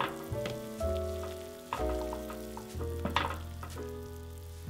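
Gentle instrumental background music with held notes changing about every second over a bass line. Underneath it, faint bubbling and sloshing of hot water as a slotted spoon stirs and scoops cauliflower florets in a steel pot.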